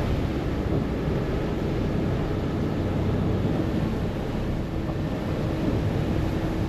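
Harbour ferry under way: its engine running steadily, with wind on the microphone and water rushing past the hull. A faint steady hum joins about halfway through.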